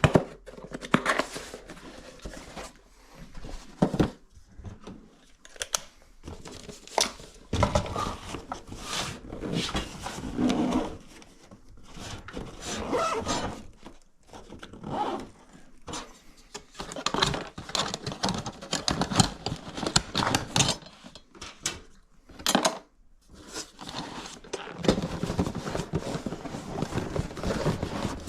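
Irregular scraping, rubbing and clicking of objects being handled, coming in short bursts with brief pauses.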